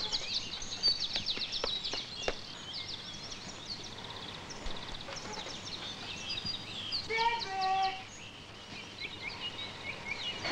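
Songbirds chirping and trilling steadily, with a few faint knocks in the first two seconds. About seven seconds in comes a short pitched sound, lasting about a second.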